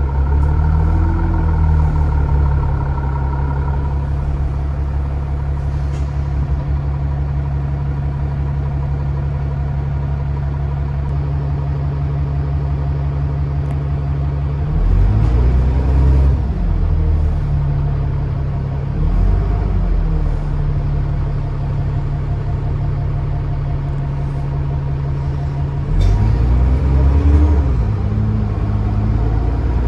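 Diesel engine of a single-deck-or-double-deck service bus heard from on board with its turbo whistling, running steadily for about fifteen seconds, then revving up and dropping back three times as it accelerates through the gears, about halfway, a few seconds later, and again near the end.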